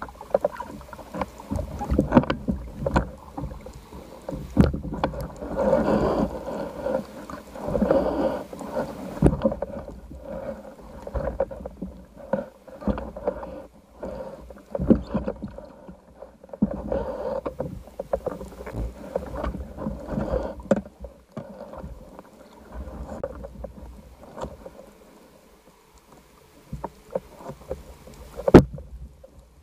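Muffled water sloshing and bubbling around an underwater camera housing just below the surface, in irregular surges with many short knocks, and one sharp loud knock near the end.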